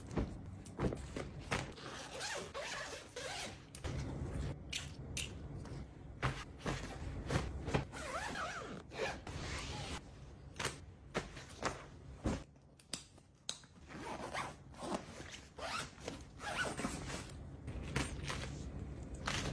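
Clothes and a canvas zip-around packing cube being handled: fabric rustling with many short taps and clicks, and zipper runs.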